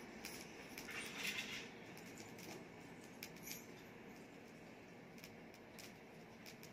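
Faint background hubbub with scattered light clicks and rustles, and a brief soft hiss about a second in.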